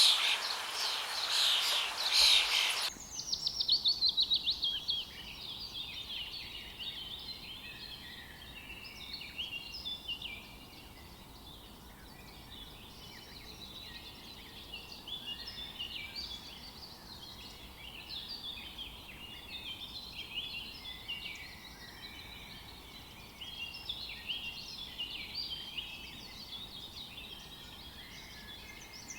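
House sparrows chirping. Loud, close chirping for about the first three seconds cuts suddenly to a quieter, busy chorus of many birds, with short cheeps overlapping without pause and a fast run of notes just after the change.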